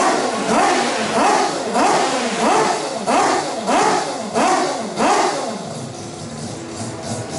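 Mazda 767B's four-rotor rotary engine revving over and over, each rev a quick rise in pitch that falls back, about one and a half a second. A little after halfway it settles to lower, quieter running, then begins to rise again near the end.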